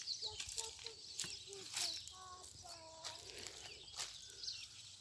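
Outdoor ambience of birds chirping, with several sharp knocks and faint voices.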